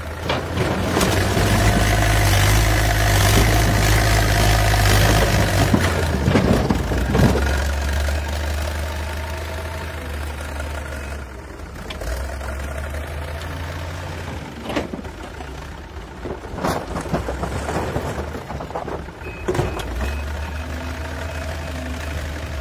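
Backhoe loader's diesel engine running, louder for the first several seconds as the loader works its front bucket, then steadier. A few sharp knocks come in the second half as broken concrete blocks are tipped from the bucket into a tractor trolley.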